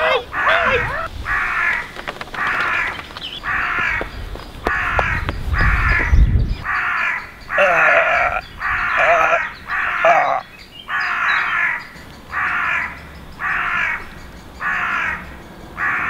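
Crow cawing over and over, harsh calls about once a second.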